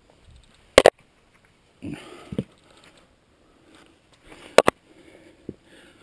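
A climber scrambling up a rock chimney: two sharp double knocks about four seconds apart, with scuffing against the rock and a breath in between.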